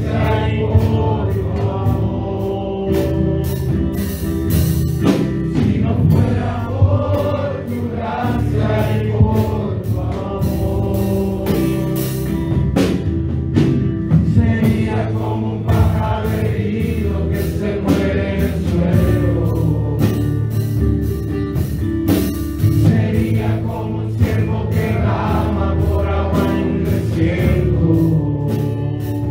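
A group singing a gospel worship song together in chorus, with sharp rhythmic beats running through it.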